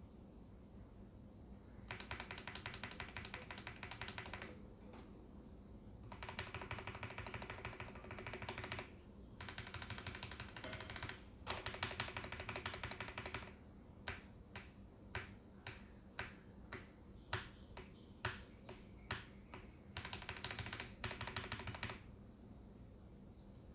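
Mechanical keyboard with Huano Rose Cream V2 linear switches (35 g springs) and ABS keycaps being typed on. Several fast runs of keystrokes come first, then a string of single key presses about twice a second, then one more fast run.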